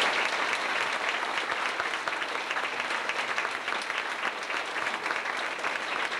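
Audience applauding: the steady, dense clapping of many hands.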